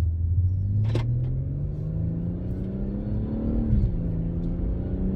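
BMW M140i's turbocharged 3.0-litre straight-six engine pulling under acceleration, its pitch rising steadily, then dropping sharply at an upshift about three and a half seconds in and running on steadily. There is a single sharp click about a second in.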